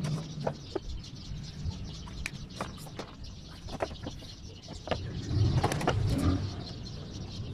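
Light clicks and taps of a circuit board and soldering iron being handled on a workbench, a dozen or so short knocks scattered through, with a low rumble about five seconds in.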